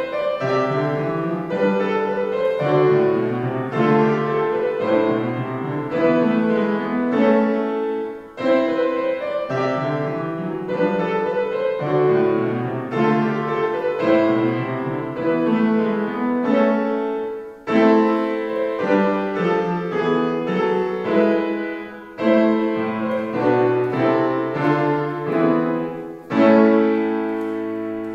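Piano music played in several phrases with brief pauses between them, ending on a chord that rings out and fades near the end.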